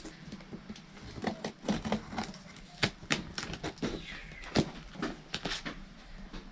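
Utility knife slitting and scraping packing tape on a cardboard box, making an uneven string of sharp scrapes and clicks as the tape and cardboard are cut and pulled.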